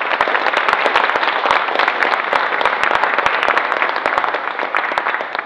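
Audience applauding: many hands clapping in a dense, even patter that starts abruptly and tapers off near the end.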